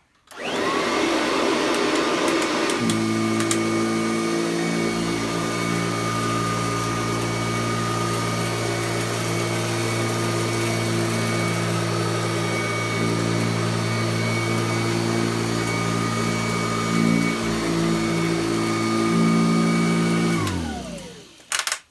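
Kirby Classic III upright vacuum cleaner switched on: its motor whines up to speed and runs steadily, with a deeper hum joining about three seconds in as it makes a back-and-forth cleaning pass. Near the end it is switched off and winds down with a falling whine.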